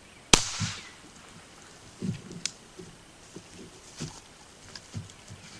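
A single .22 LR shot from a Ruger 22/45 Mark III pistol about a third of a second in, sharp with a short ringing tail. It is followed by a few quiet knocks and clicks.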